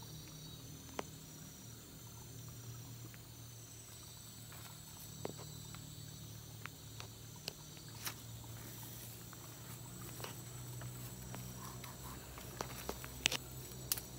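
Forest insects chirring in steady high tones over a low steady hum, with scattered small clicks and rustles from hands handling bamboo sticks and leaf litter. The clicks come more often near the end.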